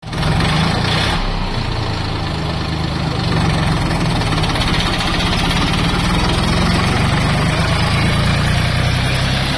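Mini farm tractor's engine running steadily.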